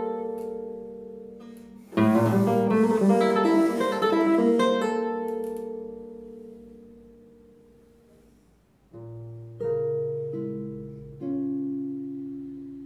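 Nylon-string classical guitar played solo. A quick flurry of plucked notes about two seconds in rings out and slowly fades, then near the end a low bass note and a few slow chords enter one after another and are left to ring.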